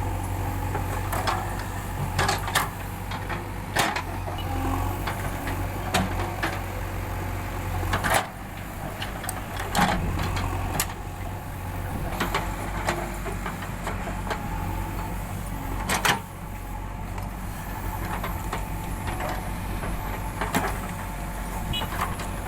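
Backhoe loader's diesel engine running steadily, with sharp knocks every few seconds as the arm and bucket are worked with the levers.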